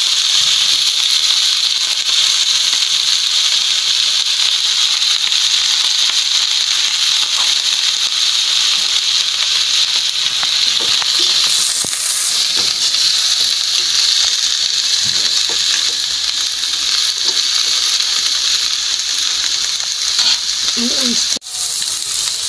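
Shredded cabbage and chicken liver sizzling in a hot wok, a steady frying hiss, with light scrapes and taps of a spatula as the food is stirred.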